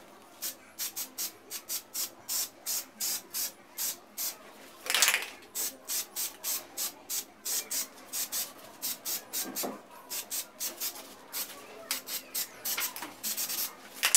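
Aerosol spray-paint can hissing in quick short bursts, about three a second, with one longer spray about five seconds in.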